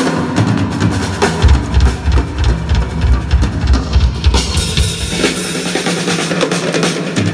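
Pearl drum kit played live: a solo with rapid bass-drum runs and snare hits, then cymbals ringing from about halfway through.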